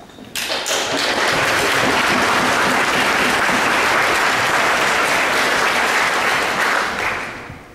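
Audience applauding in a hall. The clapping starts about half a second in, holds steady, and dies away near the end.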